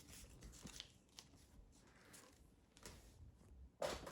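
Near silence: room tone with a few faint rustles and clicks, and one brief louder rustle near the end.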